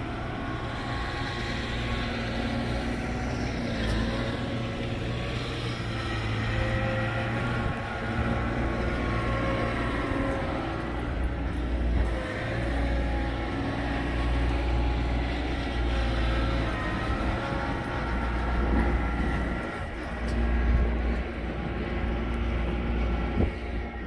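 Gusty wind buffeting the microphone in a snowstorm, over the steady drone of a vehicle engine running, its pitch wavering slightly.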